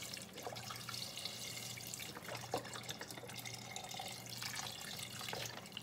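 Water pouring in a steady stream from a container into the inner pot of an electric pressure cooker that already holds beans and beef broth, filling it toward the fill line.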